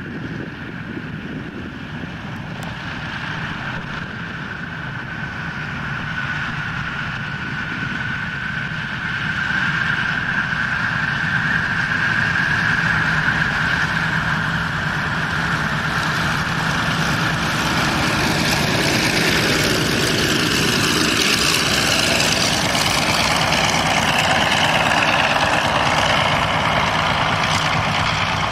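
Douglas DC-6's four Pratt & Whitney R-2800 radial piston engines and propellers running as the aircraft rolls along the runway, getting louder about ten seconds in and then holding steady.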